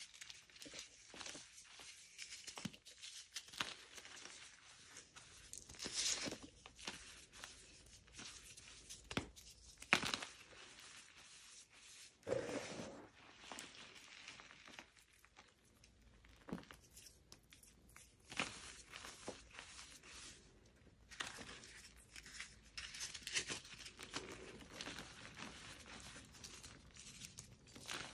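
Bare hands crushing and crumbling dyed, pasted gym chalk blocks into loose chalk powder: irregular dry crunches and crackles with soft powdery rustling between, a few crunches louder than the rest.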